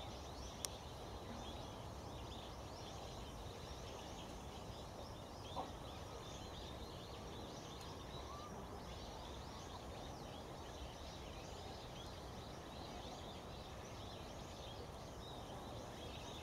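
Outdoor ambience: a steady low background rush with many faint, high bird chirps scattered throughout. A sharp click sounds about half a second in and a short knock a little over five seconds in.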